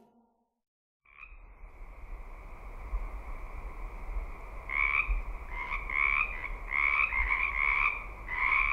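Frogs calling in a chorus: a steady trilling drone begins about a second in, joined about four seconds later by louder, rapidly pulsing calls.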